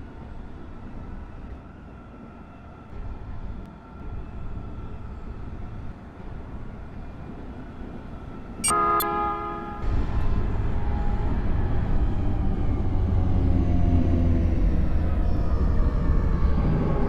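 A train gives one short horn blast, then its low rumble comes in about a second later and grows steadily louder as it approaches.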